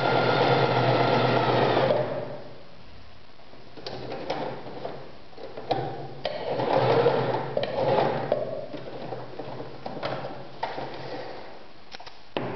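Privileg Super Nutzstich 1511-1 sewing machine stitching cotton fabric at a steady speed, stopping about two seconds in. Afterwards come separate clicks, one around the turning of the stitch selector dial, and a shorter, quieter run of the machine between about six and a half and eight and a half seconds.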